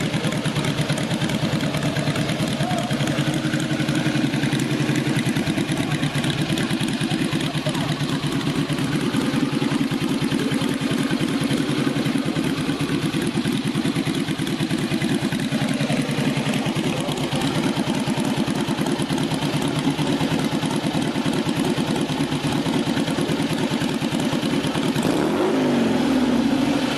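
Classic car engine running steadily at idle, with a brief rise and fall in engine pitch near the end.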